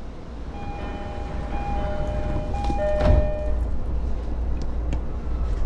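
A short electronic chime melody of several held notes at the platform, the kind that signals a Japanese train's departure, over the steady low hum of an E231-series commuter train. A thud comes about halfway through.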